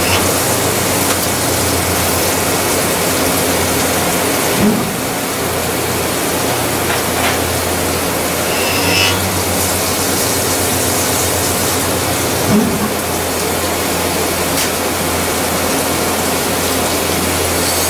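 CNC machining center drilling carbon steel with a 12 mm carbide flat-bottom drill under flood coolant: a steady spindle hum under the hiss and splash of coolant spray, with two brief bumps about five seconds in and again about twelve and a half seconds in.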